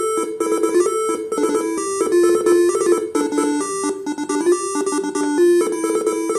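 Basuri telolet horn module (Faniatech R3) playing one of its programmed tunes: a quick melody of short, steady notes stepping up and down.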